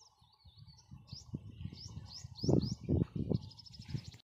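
Liquid glugging from a plastic can as it is poured into a small diesel pump engine, with three louder glugs about halfway through. Birds chirp over it with short rising calls and a quick trill near the end.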